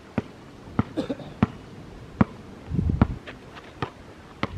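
Basketball dribbled on a hard outdoor court: about eight sharp bounces, a little under one a second. There is a brief low rumble about three seconds in.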